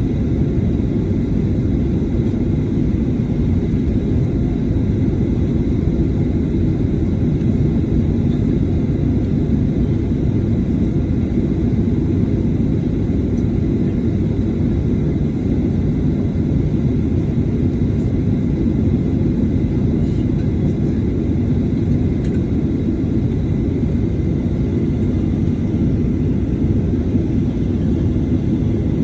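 Steady low rumble inside the cabin of a Boeing 737-800 on the ground before takeoff: its CFM56-7B engines at idle and the cabin air system, with a faint high whine.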